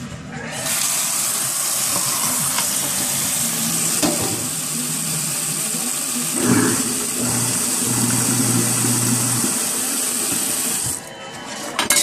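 Kitchen tap water running in a steady stream down into an InSinkErator garbage disposal's drain, starting about half a second in and shutting off about a second before the end.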